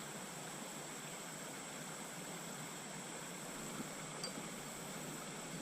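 Faint, steady outdoor hiss with a thin, high, steady whine over it, and one short high chirp about four seconds in.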